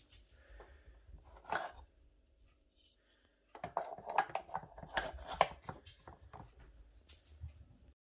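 Small wooden date-calendar blocks handled and turned over, a run of light clicks and knocks starting about three and a half seconds in.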